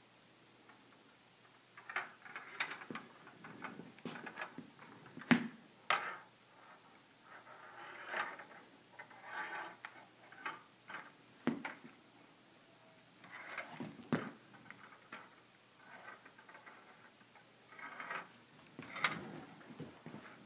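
Small steel ball rolling and rattling through the plastic tracks of a Perplexus Epic maze ball as it is tilted, in stretches of rolling broken by a few sharp clicks.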